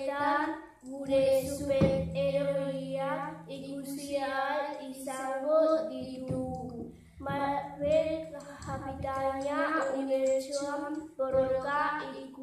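A young girl singing a song unaccompanied into a microphone, in phrases of held notes with short breaks between them.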